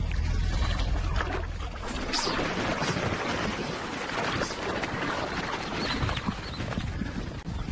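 A herd of Cape buffalo splashing and trampling through shallow water and mud, a dense jumble of splashes and hoof noise that starts about two seconds in, after a low rumble.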